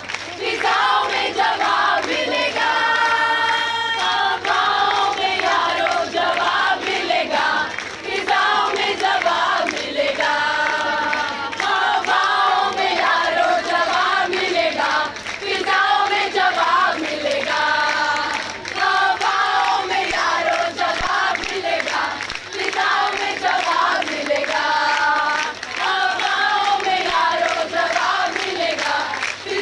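A large group of women singing protest chants together in unison, short sung phrases repeating every couple of seconds.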